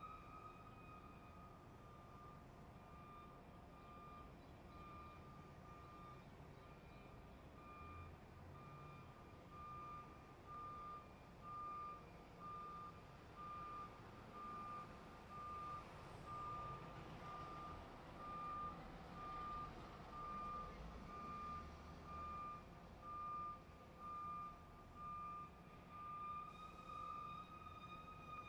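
Truck reversing alarm beeping, a single high tone repeating about once a second over a low engine rumble. It grows louder after about eight seconds, and near the end the beeps run together into a steady tone.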